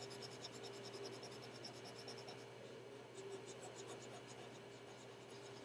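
Faint, rapid scratching of a stylus scribbling back and forth on a drawing tablet while colouring in a shape, with a short pause about halfway through. A steady faint electrical hum runs underneath.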